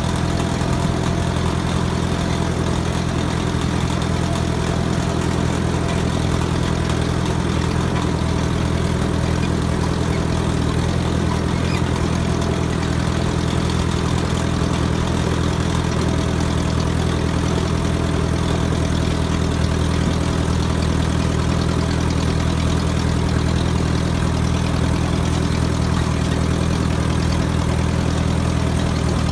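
Small farm tractor's engine running steadily as the tractor drives along, heard from on board: an even, low engine note that holds without change.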